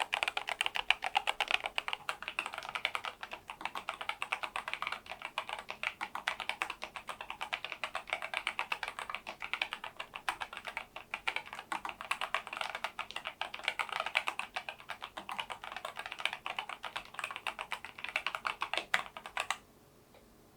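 Fast continuous typing on a NuPhy Air96 low-profile keyboard with Gateron LP 2.0 Red linear switches and its stock low-profile keycaps. The typing stops suddenly near the end.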